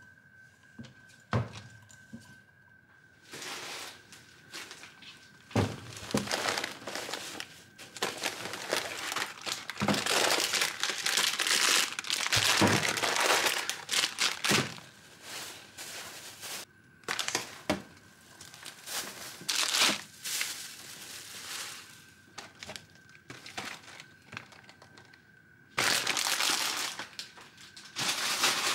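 Packaging crinkling and rustling as things are handled, in irregular stretches with several sharp knocks.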